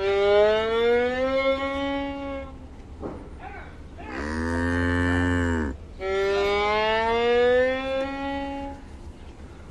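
Three long, drawn-out animal calls like mooing. The first and last rise in pitch; the middle one is flatter, with a deep hum under it.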